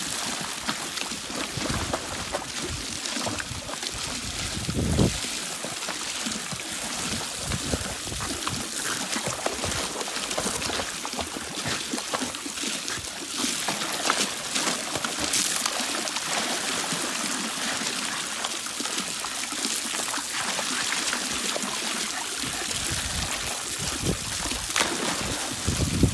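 Garden hose on its jet-stream setting spraying a steady stream into pool water, an even splashing hiss, with a dog swimming through the spray and snapping at it. There is one brief louder bump about five seconds in.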